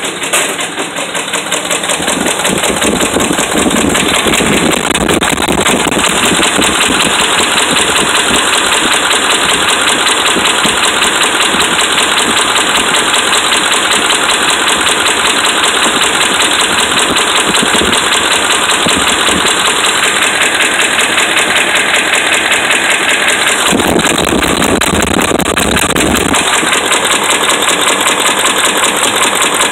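Dodge Ram 5.7-litre Hemi V8 idling with a rapid, steady knock from worn connecting-rod and crankshaft bearings. It grows louder about two seconds in.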